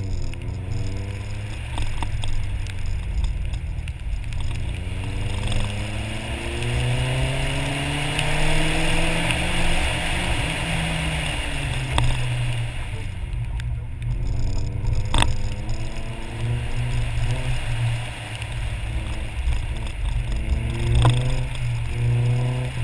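Nissan 240SX's KA24 four-cylinder engine pulling hard through an autocross lap on a wet course, revving up and dropping back several times as the car accelerates and lifts between corners, over a hiss of tyres and spray on wet pavement. A couple of sharp knocks come in the middle.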